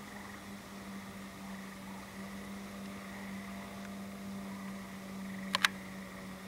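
Faint night ambience: a steady high chorus of distant frogs over a low steady hum and hiss. Two sharp clicks come close together about five and a half seconds in.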